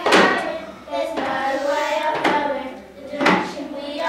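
Children's voices singing or chanting together, with some notes held, over a sharp beat that falls about once a second.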